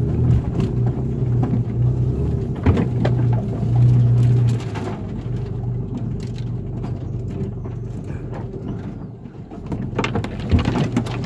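Toyota FJ Cruiser's 4.0-litre V6, heard from inside the cab as a low drone while the truck crawls up a bank off-road. It pulls harder about four seconds in, then eases off. A few sharp knocks come from the truck working over rough ground.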